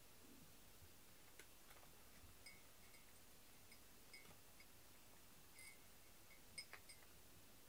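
A cat eating dry kibble from a raised ceramic bowl: faint, irregular clicks and crunches, a few each second, with a quick cluster of louder clicks near the end.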